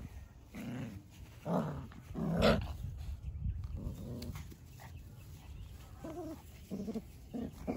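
Five-week-old Australian Shepherd puppies making short, soft play growls and yips, about eight little sounds spread out, the loudest about two and a half seconds in.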